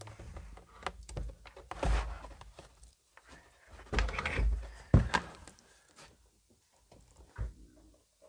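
Wooden cabinet of a 1955 Telefunken Operette 6 tube radio being tilted and turned around on a workbench: a run of knocks, thumps and scrapes of wood on the bench, the loudest thump about five seconds in, then quieter shuffling.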